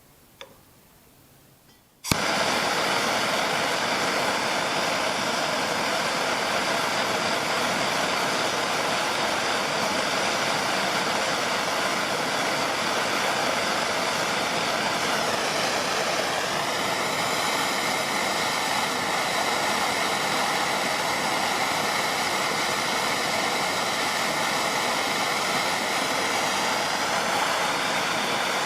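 Bernzomatic MAPP gas torch lit with a sharp click about two seconds in, then burning with a steady rushing noise while heating a copper cable lug to melt solder into it. Its tone dips and shifts about halfway through.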